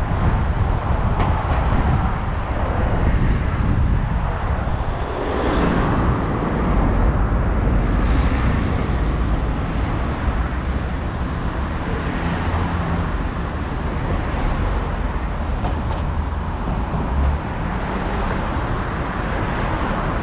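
A car driving on city streets: steady engine and tyre rumble, rising and falling in a few louder swells.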